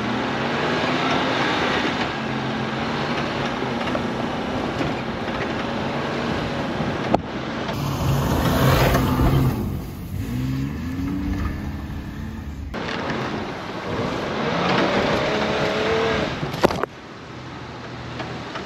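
1994 Isuzu Trooper engine working hard in four-wheel drive as it drives through loose sand and dirt, the wheels churning up dirt. The revs climb twice, about ten seconds in and again around fifteen seconds. Near the end it gives way to wind on the microphone.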